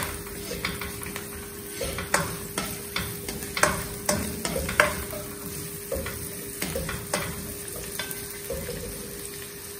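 Cumin, green chillies, ginger, curry leaves and dried red chillies sizzling in hot oil in a non-stick wok while being stirred. A plastic spoon scrapes and taps the pan at irregular moments, over a steady faint hum.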